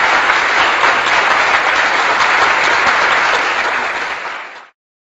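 Applause: dense, steady clapping that fades out and stops about four and a half seconds in.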